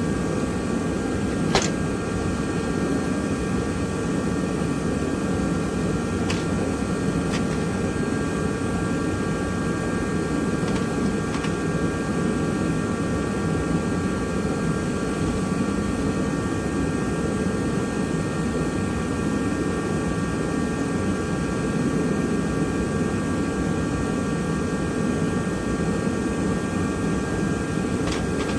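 Steady whir of a fan or similar machine running, with a few light clicks of small torch parts being handled.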